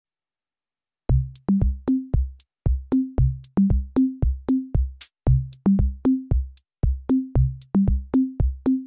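Electronic background music: a drum-machine beat with deep bass notes stepping up and down in a repeating pattern, starting about a second in.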